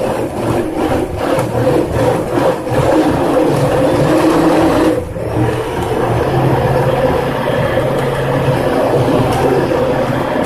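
Hand-held immersion (stick) blender running in a tall beaker, churning a thick green smoothie of spinach, kiwi and banana: a steady motor hum with liquid churning, dipping briefly about five seconds in before going on.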